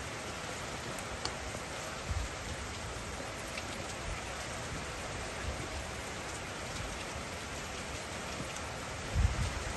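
A steady, even hiss, with a dull low thump about two seconds in and a louder one near the end.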